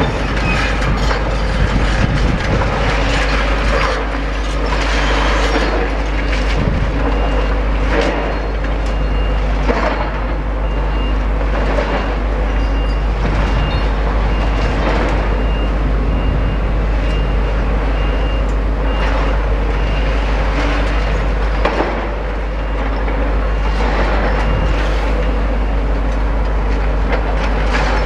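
Demolition excavator working on a building: a steady low engine rumble, with irregular crunches and clatter of breaking masonry and falling rubble every couple of seconds.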